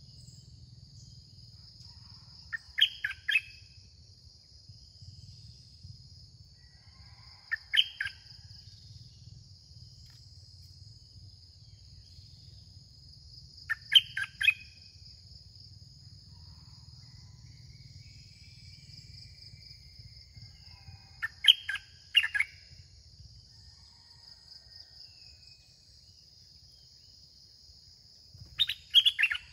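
Red-whiskered bulbul singing short, bright whistled phrases of a few notes each, five times, roughly every six seconds. A steady high insect drone runs underneath.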